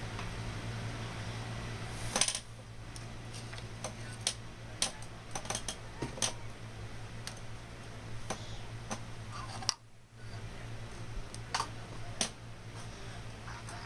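A cat biting and chewing wheatgrass (cat grass): irregular crisp clicks and crunches, the loudest about two seconds in, over a steady low hum.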